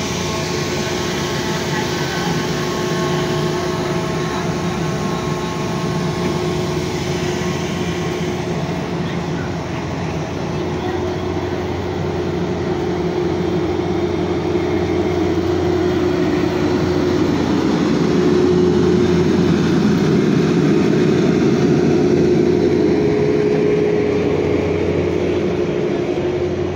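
A train running: a steady rumble with a few held tones, swelling slightly about two-thirds of the way through.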